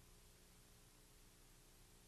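Near silence: a faint steady hiss with a low hum, and no sound from the train.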